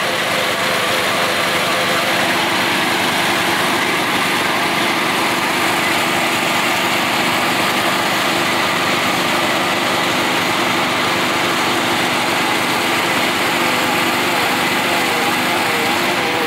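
Toro riding lawn mower's engine running steadily under load while its rear tires spin in place on wet asphalt, held back by a chain, with a steady hiss from the spinning tires. Near the end the engine's pitch wavers.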